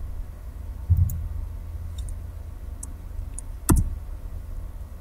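Scattered clicks from a computer mouse and keyboard, a few faint ticks and one sharp click a little after the middle, with a soft thump about a second in, over a steady low hum.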